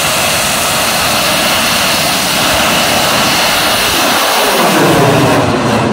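A bang fai, a large homemade black-powder rocket, blasting off and burning as it climbs, with a loud, steady rushing roar from its motor. About four seconds in, the roar's tone sweeps down and back up as the rocket rises away.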